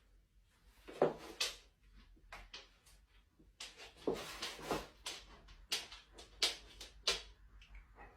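A series of irregular knocks and clatters, each sharp and brief, about nine in all with short gaps between them.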